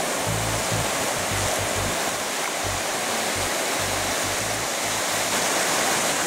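Surf breaking and washing up the beach, a steady rush of noise, with background music's bass line running under it.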